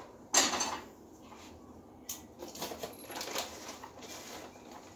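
Ceiling-fan parts being handled: a loud clatter about a third of a second in, then lighter rustling and handling noises.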